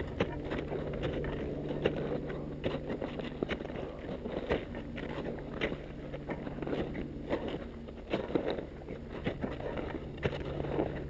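Climbers' boots crunching in trodden snow in an irregular walking rhythm, with poles planting, over a steady low hum.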